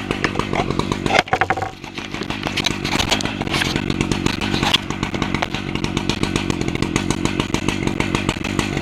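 Stihl MS880 chainsaw, a big two-stroke, running steadily while milling a 32-inch oak log on an Alaskan chainsaw mill, its sound dipping briefly about a second and a half in.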